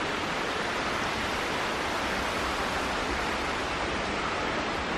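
Steady rush of moving water, an even hiss that holds without a break.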